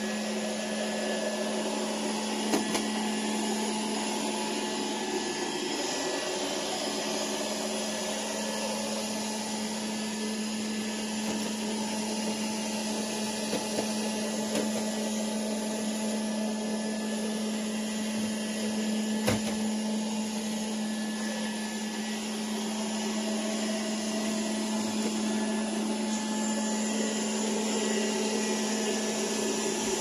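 SUPRA VCS-4093 robot vacuum cleaner running in auto-clean mode: a steady motor hum with a whirring hiss, broken by two brief knocks, one early and a louder one past the middle.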